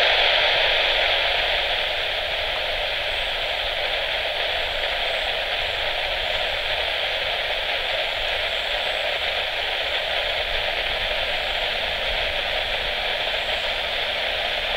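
Air-traffic-control radio static: a steady hiss through the airband receiver's speaker with no voice on the frequency. It is loudest at first and settles after about two seconds.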